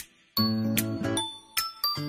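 Background music: a light tune of struck, ringing notes over held lower notes, in short phrases.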